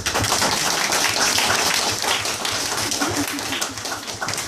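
Audience applauding, a dense patter of hand claps that begins to thin out near the end.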